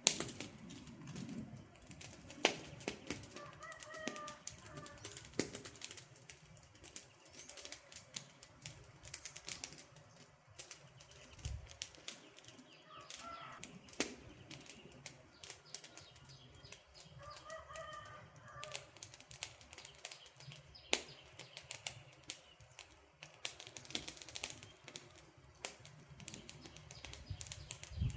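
Wood campfire crackling with frequent sharp pops. A bird calls briefly three times in the background.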